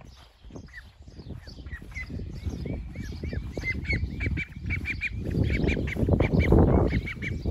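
Ducklings peeping: a rapid string of short, high calls, several a second. From about five seconds in, a louder low rushing noise rises under the calls.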